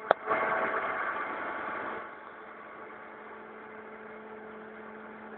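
A click, then about two seconds of louder machine noise that drops away, leaving a steady low hum from the tilting melting furnace's drive machinery as the furnace tilts for pouring.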